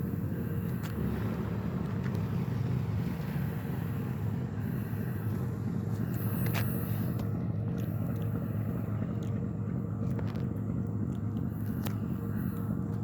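Loaded freight train rolling past: a steady low rumble with a faint steady tone and a few sharp metallic clicks.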